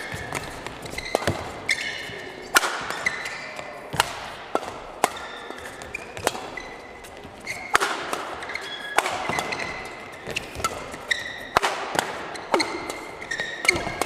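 Badminton doubles rally: a shuttlecock struck back and forth by rackets, with sharp hits about once a second. Short squeaks of court shoes on the mat sound between the hits.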